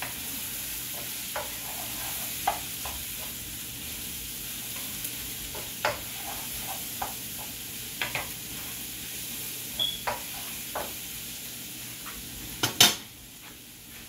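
Onions, garlic and mushrooms sizzling in a hot wok while a utensil stirs them, with scattered scrapes and taps of the utensil against the pan. A louder knock comes near the end, after which the sizzle is quieter.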